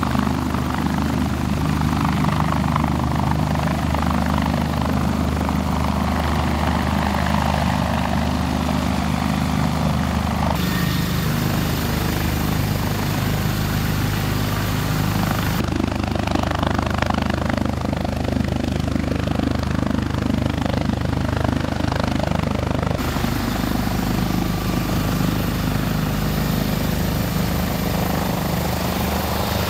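Sikorsky S-97 Raider compound helicopter hovering low, its coaxial main rotors and rear pusher propeller running with a loud, steady low beat over turbine noise.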